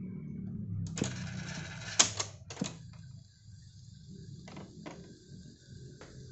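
Piano-key transport buttons and cassette compartment of a vintage UNION cassette boombox being worked by hand: about six sharp mechanical clicks and clunks, the loudest about two seconds in, with a brief rush of noise between the first two and a low hum underneath.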